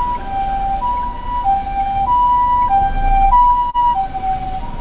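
Japanese ambulance siren sounding its two-tone "pee-poh" call. A higher and a lower note alternate, each held about 0.6 seconds, over a low vehicle rumble.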